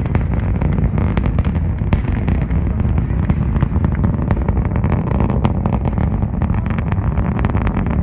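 Delta IV Heavy rocket's RS-68A engines during ascent: a continuous deep rumble full of rapid, irregular crackling pops.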